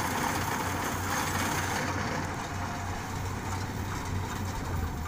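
Yanmar YH850 combine harvester's diesel engine and threshing machinery running steadily as it harvests rice: a continuous mechanical drone with a low pulsing hum, growing a little fainter and duller about two seconds in as the machine moves away.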